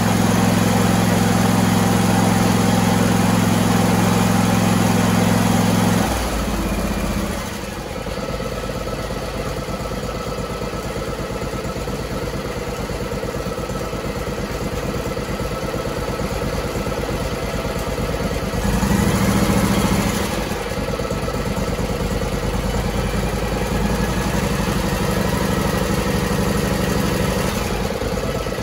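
Air-cooled Briggs & Stratton 21 hp V-twin four-stroke engine running fast, then throttled down about six seconds in to a steady idle. It picks up briefly about two-thirds of the way through and settles back to idle. It runs smoothly on its replaced, properly adjusted governor.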